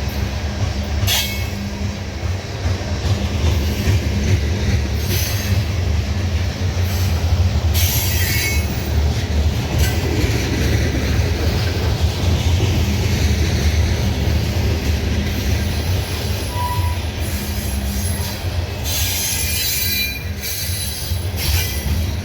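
Loaded coal train's cars rolling past with a steady low rumble, broken several times by brief high-pitched wheel squeals.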